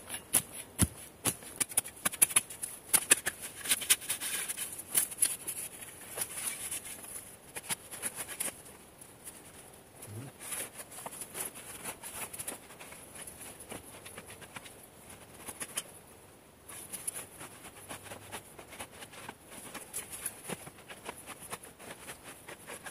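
Dry forest litter crackling and rustling underfoot and under a spade cutting into a mossy turf layer, with sharp crackles in the first several seconds. After that come softer, steady rustles as hands pull at the moss and grass sod.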